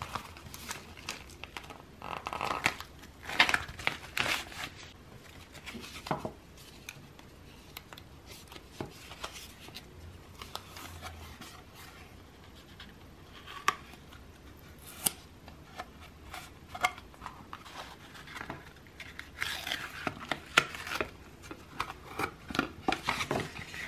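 Plastic packaging and small items being handled and opened by hand: rustling and crinkling with scattered sharp clicks and snips. The sounds come in busy spells a couple of seconds in and again near the end.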